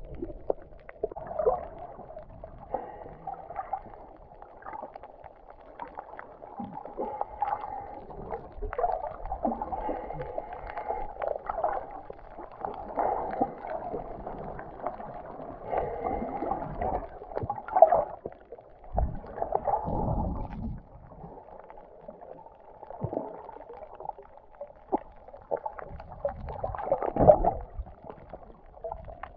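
Muffled underwater sound through a camera's waterproof housing: a steady dull murmur of water with gurgling. Several louder low bumps and swells come past the middle and again near the end.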